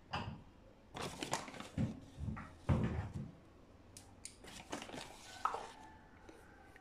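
Kitchen handling sounds: a spoon knocking against a ceramic mixing bowl and plastic packaging crinkling as dry ingredients are added. A cluster of knocks and rustles comes in the first three seconds, followed by a few fainter clicks.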